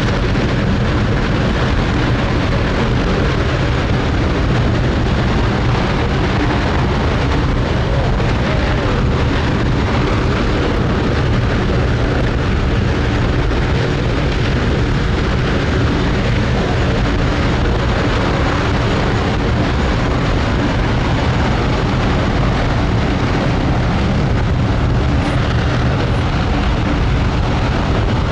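Space Shuttle Main Engine, a liquid-hydrogen/liquid-oxygen rocket engine, firing at full steady thrust on its test stand, heard from a distance as a loud, continuous deep rumble with a hissing top that holds the same level throughout.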